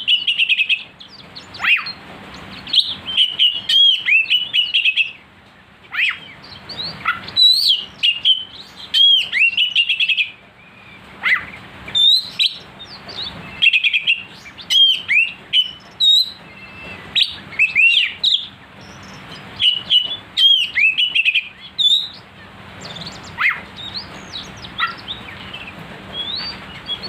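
Oriental magpie-robin (kacer) singing in full voice: loud, sharp whistled notes and chatters that sweep up and down, delivered in rapid bursts with short pauses between them.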